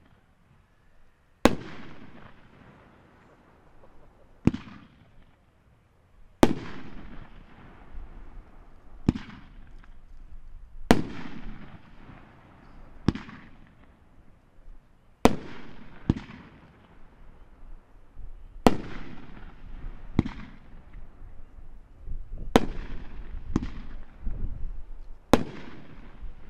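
A Dominator Mammoth Strobe 500 gram consumer fireworks cake firing its shots one at a time: about a dozen sharp bangs, one every one to three seconds. A hissing, crackling trail follows each bang and fills the gaps between them, growing denser near the end.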